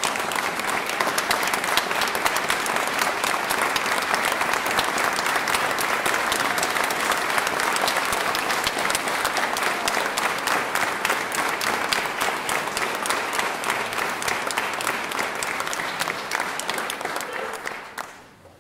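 Audience applauding a chamber orchestra at the end of a piece: dense, steady clapping that starts suddenly and dies away near the end.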